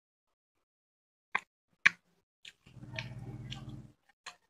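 Mouth sounds of someone eating fried chicken legs by hand: two sharp wet smacks, then a few small clicks and about a second of steady low chewing sound near the end.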